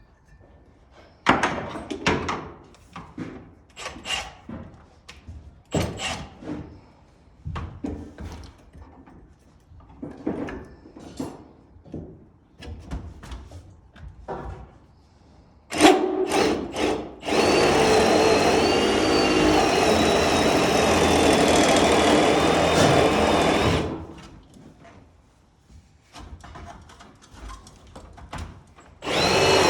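Milwaukee Super Hawg right-angle drill boring through wood framing: after scattered knocks and clatter, a few sharp strikes, then the drill runs steadily with a wavering high whine for about six seconds a little past halfway, stops suddenly, and starts again near the end.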